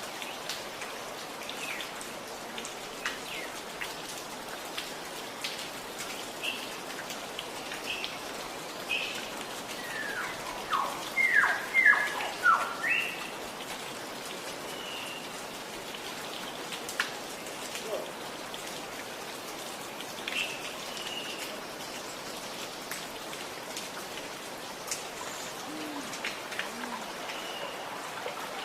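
Water gurgling and trickling steadily with many small drips, under scattered bird chirps. About ten seconds in, a bird gives a loud run of five or six quick falling whistled notes, and a few low hoots come near the end.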